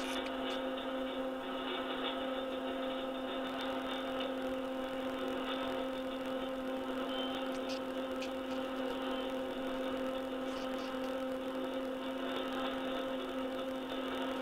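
Lathe running with a steady, even hum while the tool takes a continuous cut on the turning workpiece.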